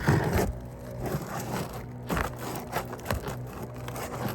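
A roofing tool scraping and knocking under asphalt shingles as it works a nail jammed into the roof decking loose, in irregular scrapes and taps with a louder knock at the start.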